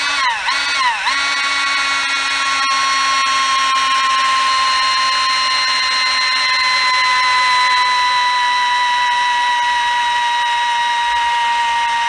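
Cordless drill boring through the distributor housing to open its clogged vents. A few short trigger pulses make the motor whine rise and fall, then it runs as a steady high whine that slowly drops in pitch: the drill's battery is dying.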